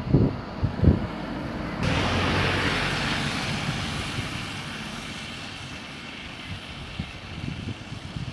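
Road traffic noise: a vehicle's rushing noise starts abruptly about two seconds in and slowly fades, with wind buffeting the microphone at first.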